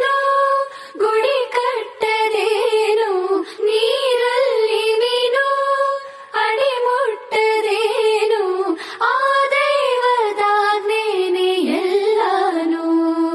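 A high solo voice singing a slow, ornamented Carnatic-style melody without words, with held notes and sliding pitch, on a music track.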